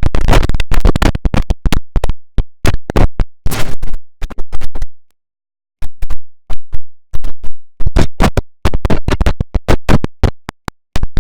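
The IBM OS/2 Warp 3 shutdown sound effect, chopped by editing effects into a rapid, stuttering run of short cut-off fragments, several a second, like a glitchy scratch loop. It breaks off into silence for nearly a second about five seconds in, then stutters on.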